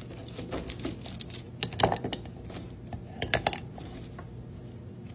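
Marble rocks clacking against each other and the plastic walls of a rock tumbler barrel as they are set into it, a few light knocks around two seconds in and again about three and a half seconds in.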